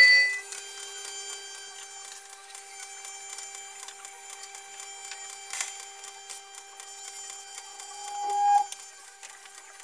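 Experimental soundscape of two steady held tones with scattered fine clicks and crackle. One tone swells louder about eight seconds in and then cuts off suddenly.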